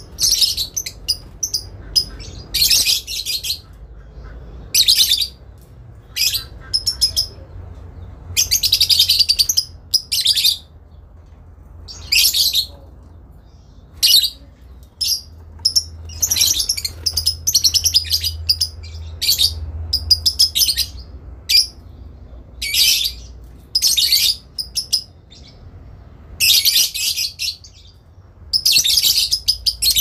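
Fischer's lovebird giving its long chattering 'ngekek' song: shrill, rapid chatter in bursts, some brief and some about two seconds long, one after another with short gaps, as birds call back and forth to each other.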